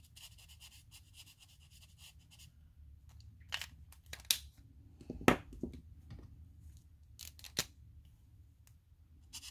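Felt tip of an alcohol ink marker dabbed quickly over a dip-powder nail: a fast, even run of scratchy ticks for the first two seconds or so. Then a few separate clicks and knocks as the plastic markers are handled and set down, the loudest about five seconds in.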